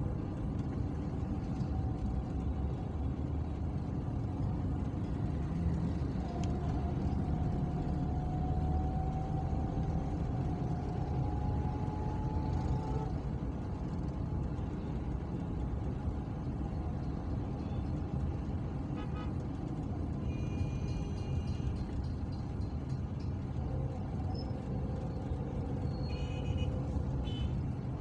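Steady engine and road rumble heard from inside a car moving through slow town traffic. A faint whine rises slowly for several seconds in the middle, and a few short high-pitched tones sound in the last third.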